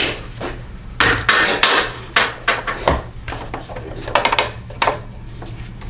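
Irregular clanks and knocks of metal mower parts being worked loose and handled while a Toro push mower is taken apart, with a run of quick clatters about a second in.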